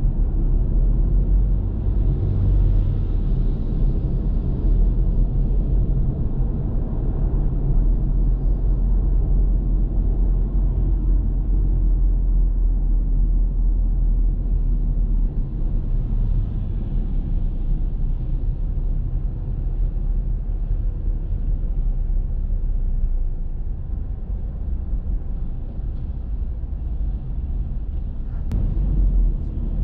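A car driving steadily on city roads: a continuous low rumble of engine and road noise that eases slightly for a few seconds in the last third.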